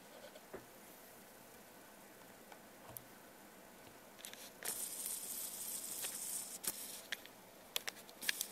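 A few faint clicks, then about two seconds of rustling handling noise and several sharp taps near the end as the camera is picked up and repositioned.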